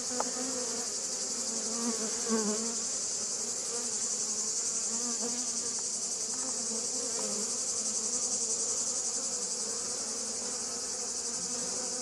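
Honeybees buzzing around an opened hive during an inspection: a steady, slightly wavering hum, over a constant high-pitched hiss.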